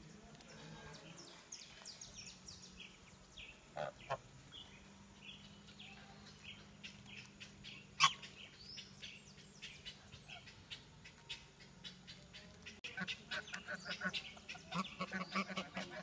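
Domestic geese and ducks calling at a pond: scattered short calls and honks, with one sharp, louder sound about halfway and the calling growing busier over the last few seconds.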